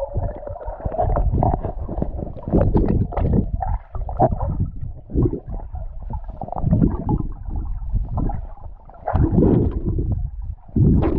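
Water moving past a camera held underwater in a lake: a muffled, low gurgling and sloshing that comes in uneven surges with the swimmer's strokes and bubbles.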